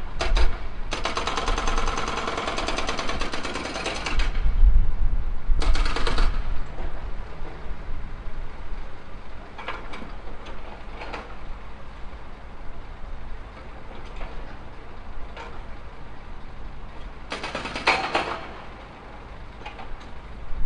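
Tractor-mounted hydraulic breaker hammering in rapid bursts: a long burst of about three seconds near the start, a short one around six seconds in, and another near the end. A steady low engine rumble and occasional single knocks run underneath.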